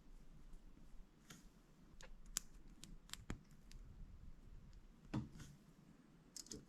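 Faint, scattered clicks and taps of small plastic building-block pieces being handled and pressed together, a few sharp clicks spread a second or so apart, with a small cluster near the end.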